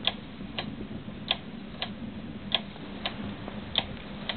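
Home-built Bedini motor running, its bicycle-wheel rotor and pulse coil ticking evenly about twice a second, louder and softer ticks alternating, over a low steady hum.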